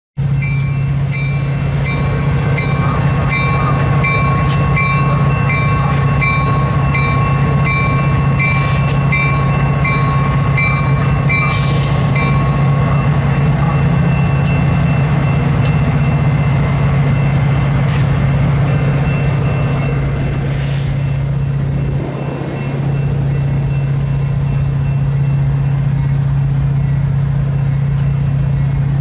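Diesel locomotives running with a steady low drone, while a grade-crossing bell rings about twice a second and stops about twelve seconds in.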